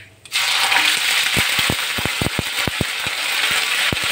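Ginger-garlic paste dropped into hot mustard oil in a kadhai, bursting into a loud, steady sizzle the moment it hits the oil. Through the sizzle come quick sharp pops and clicks as the paste is stirred with a metal spatula.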